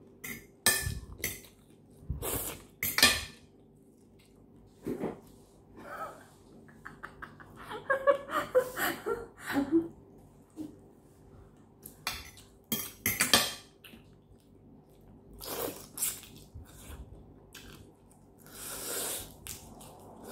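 A fork and dishes clinking and knocking on a ceramic plate in scattered short strokes, with mouth sounds of eating between them.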